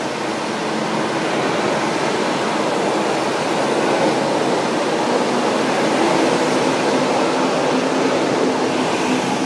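A São Paulo Metro Line 1 train of stainless-steel cars running past along the platform: a loud, steady rush of wheels on rail that grows slightly louder as the cars go by.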